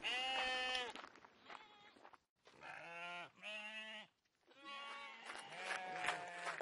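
A flock of sheep bleating, several bleats one after another with short gaps between them.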